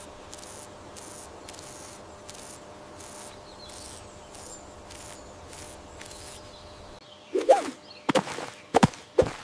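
Outdoor night ambience with insects chirping in regular pulses, about two to three a second, over a low steady background. About seven seconds in, a brief pitched cry and a few sharp knocks break in.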